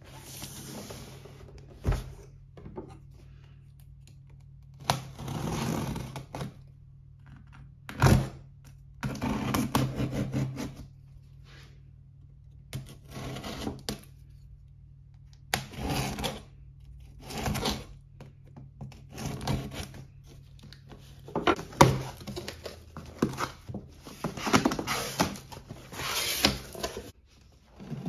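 A cardboard shipping box being opened by hand: packing tape slit with a knife, and cardboard flaps scraping and rustling. A few sharp knocks stand out, the loudest about eight seconds in and near twenty-two seconds.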